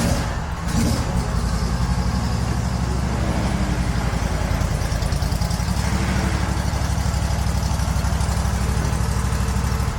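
A motor or engine running steadily with a fast, even low pulse, cutting off suddenly at the end.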